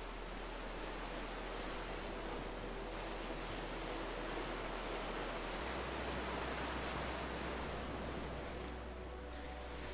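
Ocean surf: a steady wash of waves that swells gently and ebbs a little near the end.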